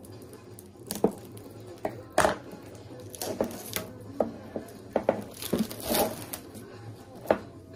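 Plastic shrink-wrap crinkling and crackling as it is torn and peeled off a sealed trading-card box. There are scattered sharp crackles and two longer stretches of rustling, about three and a half and about six seconds in.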